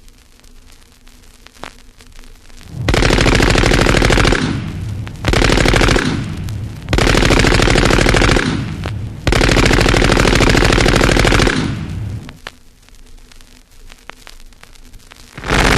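Automatic gunfire in four long, rapid bursts with short pauses between them, then a fifth burst starting near the end, from an unfiltered vintage vinyl record with surface noise.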